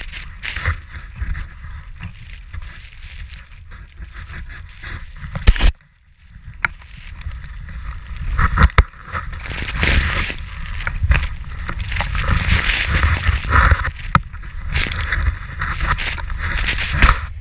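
Skis ploughing through deep powder snow, with snow spraying over the camera and wind buffeting the microphone in a rough, rushing noise that swells and fades; it briefly drops out about six seconds in.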